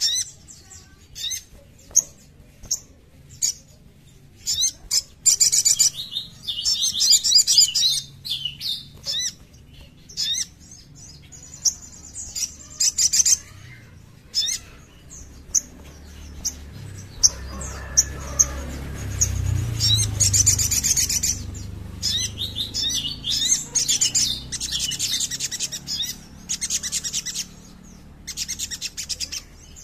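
Male sunbird (sogok ontong) calling: sharp, high-pitched chirps and fast trills in repeated bursts. A low rumble runs under the calls for a few seconds near the middle.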